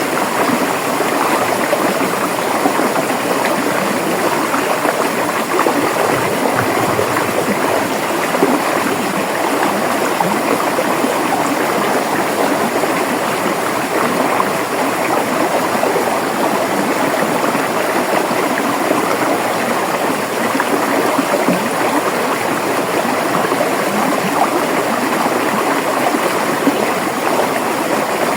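River water flowing and babbling over rocks, a steady rushing noise.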